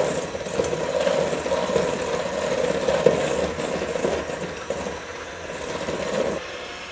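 Electric hand mixer running steadily, its beaters creaming softened butter, brown sugar and egg in a bowl. The motor drops away about six seconds in.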